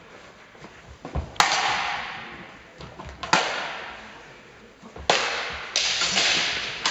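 Swords clashing against blades and metal bucklers in a sword-and-buckler bout: four sharp strikes, the last two close together, each leaving a hissing echo that fades over a second or more in the large hall.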